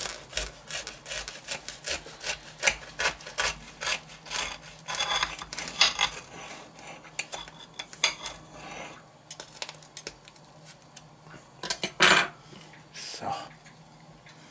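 Knife sawing through a crisp grill-toasted sandwich on a ceramic plate: quick crunching of the toasted crust with the blade scraping the plate, several strokes a second, thinning out after about nine seconds, with one louder scrape near the end.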